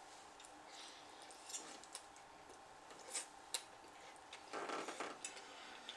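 Quiet eating sounds: a metal fork clicking a few times against a plate of noodles, with a short soft mouth noise from chewing about four and a half seconds in.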